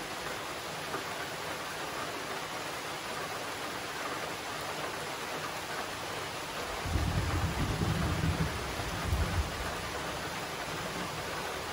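Steady rain hissing down, with a low rumble of thunder that starts suddenly about seven seconds in and lasts two or three seconds.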